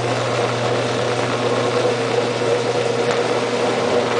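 Washing machine draining, its pump and motor running with a steady hum over a wash of water noise. The drum is not spinning up as it should at this point in the cycle, which the owner takes as a sign that the motor doesn't sound right.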